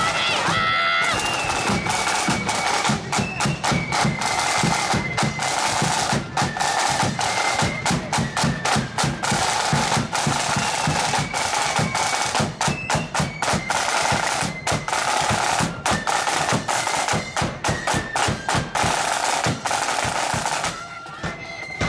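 Marching band drums playing: snare drums rattling out fast rolls and patterns over bass drum beats, dropping back briefly near the end.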